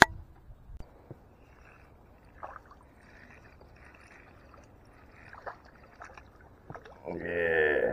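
Faint splashing of a hooked fish thrashing at the surface beside an aluminium jon boat as it is reeled in, with a few small clicks. Near the end comes a drawn-out pitched call lasting about a second, louder than everything else.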